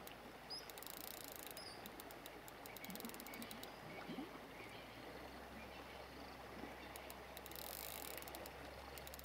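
Faint outdoor riverbank ambience: a soft steady hiss with two spells of rapid, high-pitched clicking trills, one early and one near the end, and a few brief low chirps.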